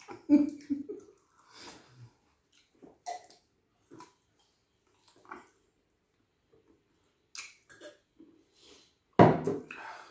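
Eating sounds close to the microphone, from a meal of fufu with stew and fried fish: scattered short mouth noises of chewing, smacking and slurping, with quiet gaps between them and the loudest one about nine seconds in.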